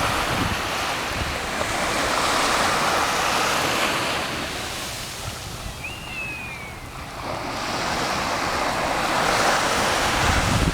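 Sea waves washing onto a beach, the surf swelling, easing and swelling again, with wind buffeting the microphone. A short high falling whistle sounds once about six seconds in.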